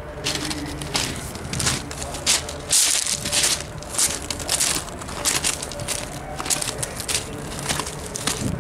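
Footsteps crunching on loose gravel, about two steps a second, over a steady low hum.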